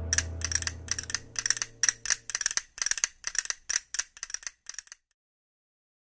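End of the closing music: a low held note fades out while a run of light, bell-like metallic strikes rings out about three times a second, growing sparser and cutting off about five seconds in.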